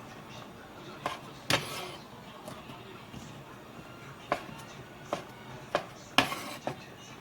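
Kitchen handling noises: a series of sharp knocks and clatters of utensils and containers being picked up and set down, loudest twice, about a second and a half in and about six seconds in.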